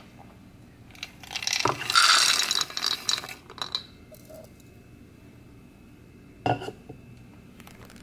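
Dry dog-food kibble poured from a plastic measuring cup into a ceramic bowl, the hard pellets rattling and clinking against the bowl for about two seconds. A single short knock follows a few seconds later.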